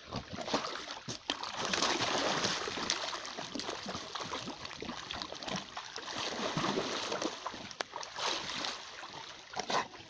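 Shallow water splashing and sloshing as two American Staffordshire terriers wade and scramble about and tug at a floating log. The splashing comes in a steady run of small splashes, with a few sharper ones near the end.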